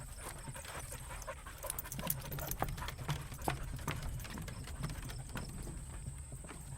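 A dog panting, with irregular sharp clicks and scuffs from about two seconds in.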